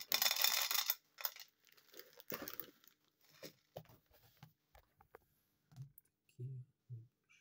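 A foil bag of Optimeal dry cat food crinkling as kibble is poured out and rattles into a plastic bowl, loudest in the first second, then a few scattered light clicks as the last pieces settle.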